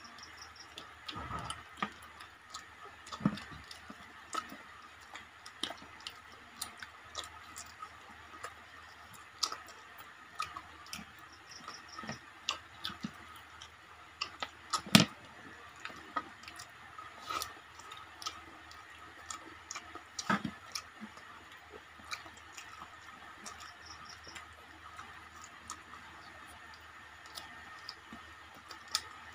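Eating by hand: scattered small clicks and smacks of chewing and of fingers mixing rice and curry on plates, with one sharper, louder click about halfway through.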